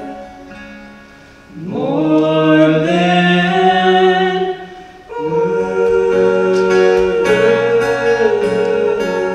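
Two male voices singing a slow ballad together in long held notes over acoustic guitar. The voices slide up into a sustained note about a second and a half in, break briefly about five seconds in, then hold again.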